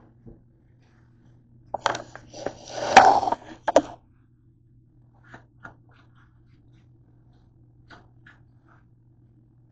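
Camera handling noise: a quick run of knocks and scrapes as the camera is picked up and moved along a hard countertop, followed by a few faint clicks.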